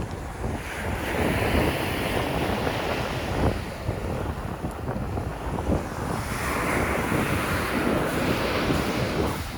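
Rough sea surf breaking and washing in, with heavy wind buffeting the microphone. Two waves surge in, one about a second in and another past the middle.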